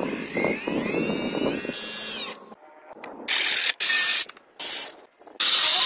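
A brushless electric motor drives a small gear pump: it whines up in pitch, runs for about two seconds, then winds down and stops. After a short gap an electric drill runs in four short bursts, its spinning part sanded against sandpaper with a loud hiss.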